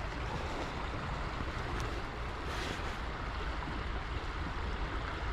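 Steady rush of flowing creek water, with wind buffeting the microphone in a fluttering low rumble; a brief louder hiss about two and a half seconds in.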